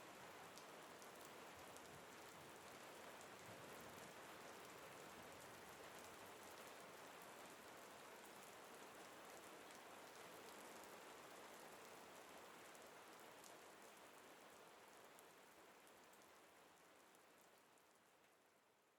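Steady rain falling on a surface, faint, with fine drop patter; it fades out gradually over the last several seconds.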